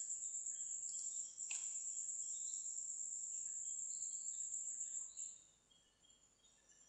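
A cricket trilling steadily at a high pitch, with faint chirps around it. The trill stops about five seconds in, and a single sharp click comes about a second and a half in.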